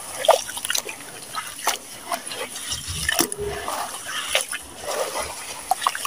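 Hands squeezing and crumbling clumps of gritty wet cement in a plastic tub of grey slurry: irregular wet squelches, splashes and drips with short gritty crackles.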